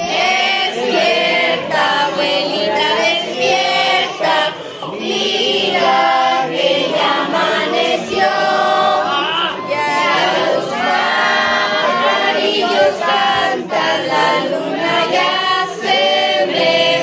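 A group of people singing together without accompaniment, a birthday song sung for someone in front of a cake.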